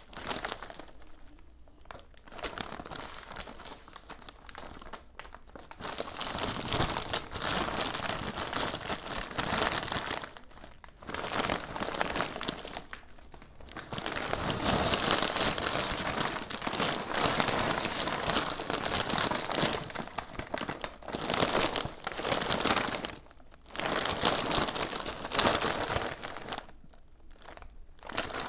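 Foil snack bags of Takis Fuego and Flamin' Hot Cheetos crinkling as they are shaken and turned in the hands, in spells of a few seconds with short pauses between.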